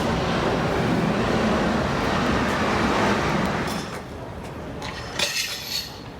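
City bus running, a steady engine and road noise that eases off about four seconds in, with a short hiss about five seconds in.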